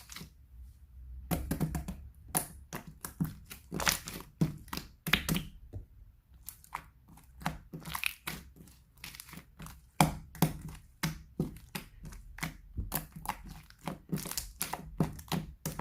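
Hands squishing and pressing a water slime, making a quick, irregular run of crackles, pops and squelches.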